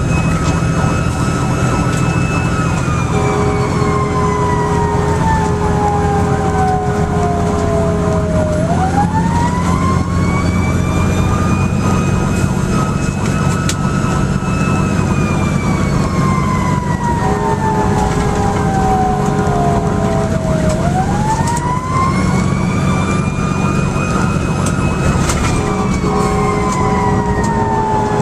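Fire engine siren wailing, heard from inside the cab: each wail rises quickly, holds high for a couple of seconds, then falls slowly, three times over, above the steady drone of the truck's engine.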